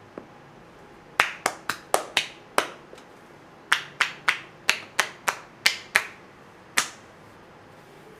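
Sharp, loud finger snaps from a masseuse's hands working over a man's back: a quick run of six, a pause, a run of eight, then one last snap.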